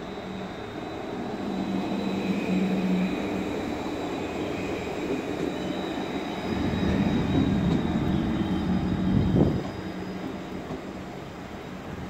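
City street traffic: a steady engine hum, then a vehicle passes close by, loudest about nine and a half seconds in before it falls away.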